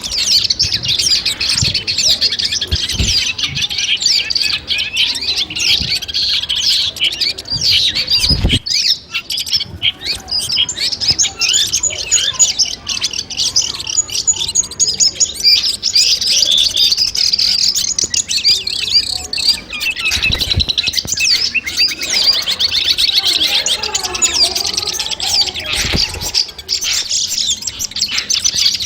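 Long-tailed shrike (cendet) song: a dense, continuous run of rapid, high chirps and trills. There are a few brief low thumps.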